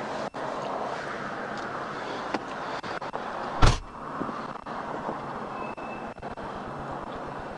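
Steady rushing background noise, with one loud, sharp thump about three and a half seconds in.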